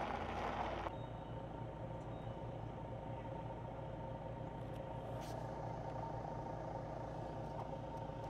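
A car idling while stationary in a queue, heard from inside the cabin as a steady low hum with a faint steady whine. There is a brief louder rush of noise in the first second.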